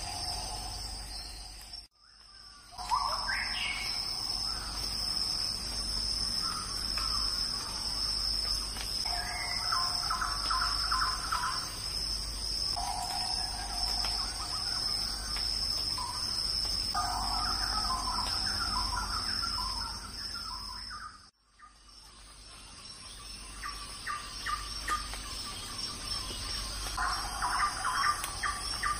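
Outdoor insect chorus: crickets or cicadas buzzing steadily at a high pitch, with birds chirping and trilling in short repeated phrases over it. The sound cuts out abruptly twice, about two seconds in and again about twenty-one seconds in.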